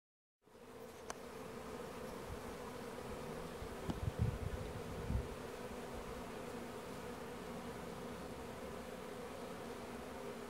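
A honeybee swarm buzzing, a steady dense hum, with a few low thumps about four to five seconds in.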